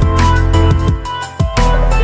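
Background music: an electronic track with deep bass and a steady drum beat, dipping briefly about a second in before coming back in full.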